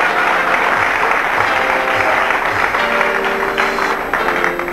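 Studio audience applauding, with instrumental music coming in underneath; its held notes grow clearer toward the end as the clapping eases.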